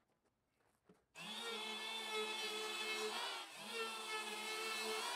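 Electric hand power plane starting up about a second in and running with a steady whine while it chamfers the edge of a 6x6 timber post. Its pitch sags briefly past the middle, then climbs back.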